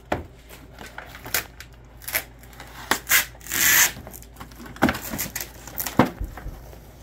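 Unpacking noises: cardboard packing pieces scraping and sliding, and protective plastic being peeled off a 3D printer's glass door, in short scrapes with a longer, louder one about three and a half seconds in and a couple of sharp knocks near the end.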